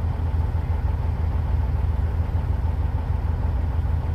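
Cummins N14 diesel of a 1999 International 9400 semi truck running steadily, heard from inside the cab as a low, even drone.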